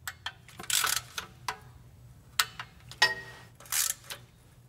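Torque wrench ratcheting and clicking on transmission pan bolts as they are tightened to about 72 inch-pounds: a scatter of sharp clicks with a few short rasping bursts.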